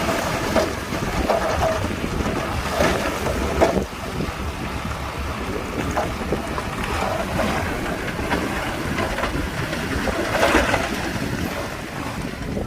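Shantui bulldozer's diesel engine running steadily with wind buffeting the microphone, and several louder bursts of scraping noise about three, four and ten seconds in.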